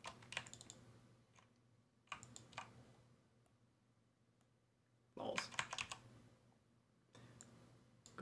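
Faint clatter of computer keyboard keys and mouse clicks in four short clusters, over a low steady hum.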